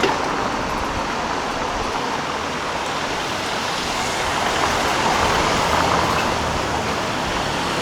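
City street traffic: a steady wash of passing cars and road noise.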